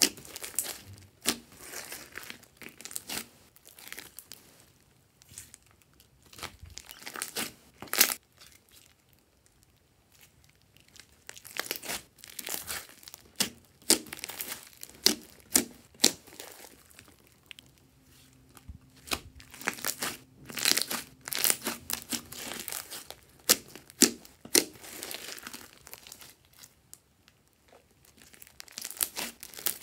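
Hands kneading, stretching and folding a large mass of slime mixed with foam beads, giving bursts of sticky crackling and popping as air pockets break. There are two brief quieter pauses.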